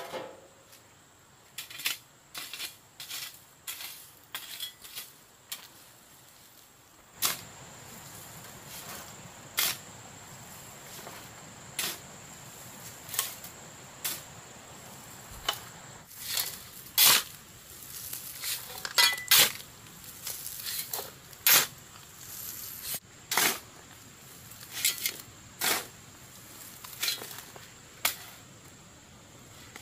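Irregular sharp clinks and knocks of hard objects striking, typical of hand stonework: cobblestones and tools knocking while a retaining wall is laid. A faint steady hiss comes in a few seconds in.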